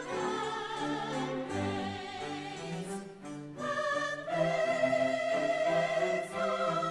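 Orchestral holiday music with an operatic singing voice; a long, wavering held note begins about four seconds in.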